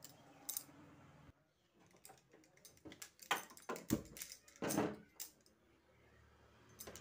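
Aluminium pressure cooker set down on a gas stove's grate with a knock about four seconds in, among scattered metal clicks and the sharp clicks of a spark gas lighter at the burner; a faint steady low hum follows near the end.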